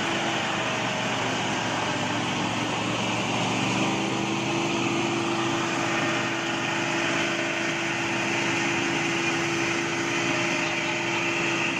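Diesel engine of a heavily loaded logging truck running steadily as it pulls through mud, its engine note rising slightly about three seconds in and then holding.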